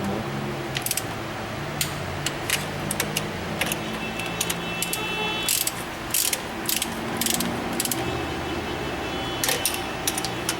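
Hand ratchet wrench clicking in irregular runs as bolts are turned during engine reassembly.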